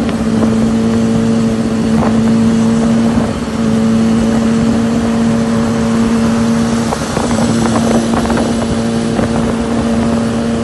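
Motorcycle engine running at a steady cruising speed, holding an even pitch with a brief dip about three seconds in, over wind rushing past the microphone.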